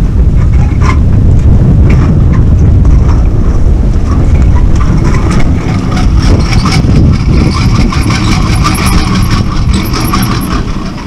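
Loud wind buffeting the microphone on a small boat in choppy water, a heavy rumble with irregular knocks and splashes of waves against the hull.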